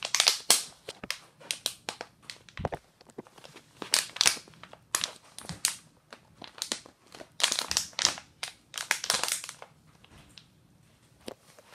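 Thin plastic water bottle crinkling and crackling in irregular bursts as a baby grips and squeezes it, dying away near the end.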